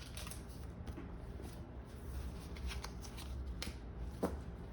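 Pokémon trading cards being handled and slid through the hands, a soft rustle of card stock with scattered light clicks, two sharper ones near the end.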